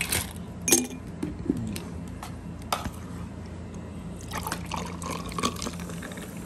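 Ice cubes clinking as they drop into a drinking glass. About four seconds in, cola is poured from a plastic bottle over the ice, splashing and fizzing.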